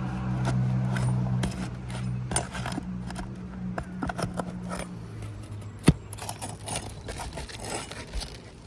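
Metal nail-pulling bar scraping and clicking against asphalt shingles and roofing nails as the nails are worked out, with one sharp clink about six seconds in. A steady low hum runs under the first five seconds.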